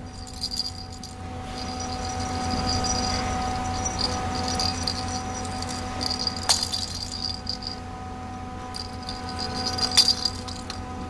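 Plastic rattle ball toy jingling in short bursts as a puppy mouths and carries it, with a couple of sharp knocks of the ball, about six and ten seconds in, over a steady background hum.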